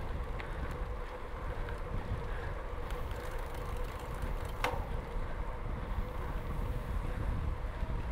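Wind buffeting the microphone over the rumble of bicycle tyres rolling on a gravel road, with one sharp click about halfway through.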